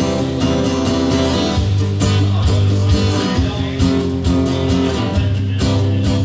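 Live instrumental passage: guitar strummed in a steady rhythm over a bass guitar line.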